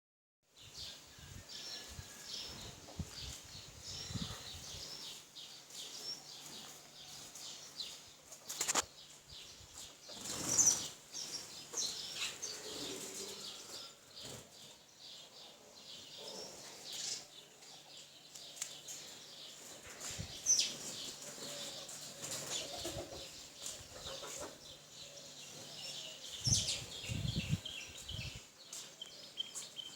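A flock of birds chirping with many short high calls, with bursts of wing flapping near the start and near the end. There is a sharp click about nine seconds in.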